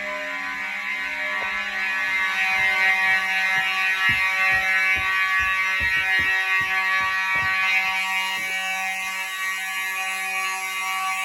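Home fire alarm system in general alarm, its horns sounding together steadily rather than in march-time pulses, which the owner says they were supposed to do. A run of irregular low knocks comes partway through.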